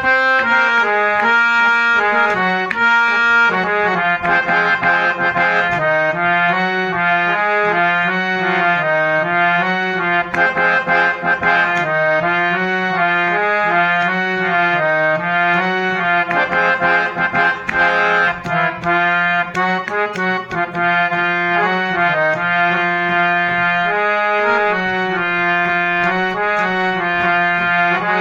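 Harmonium playing a ringtone melody, its reeds sounding a run of changing notes over a held low note.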